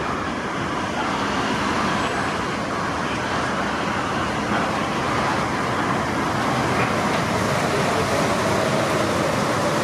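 New Shuttle 1050-series rubber-tyred guideway train running in alongside the platform: a steady rolling rumble that grows slightly louder. Over the last few seconds a motor whine falls in pitch as the train slows.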